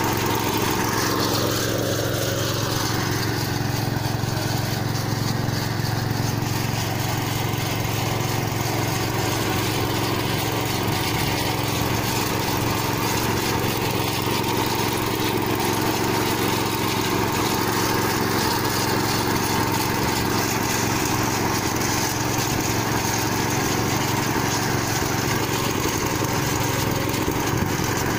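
Small petrol engine on a walk-behind corn-row cultivator running steadily at working speed while the machine tills between the corn rows.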